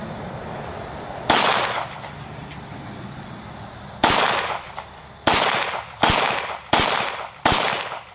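Handgun fired six times: a single shot, a pause of nearly three seconds, then five more shots in a row, each about a second apart. Each report rings out and fades quickly.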